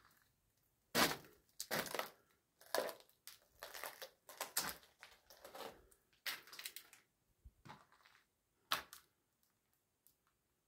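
Footsteps crunching over a floor strewn with debris and crumbled plaster, irregular steps about one a second.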